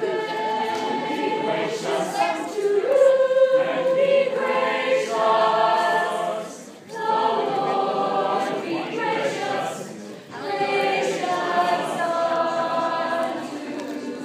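Mixed choir of young voices singing a cappella in sustained chords, with two brief breaks between phrases, about seven and ten seconds in.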